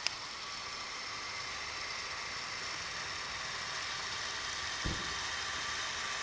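Lego Technic RC boat's small electric motor running with a steady high whine, over a noisy hiss, with a click at the start and a low thump about five seconds in.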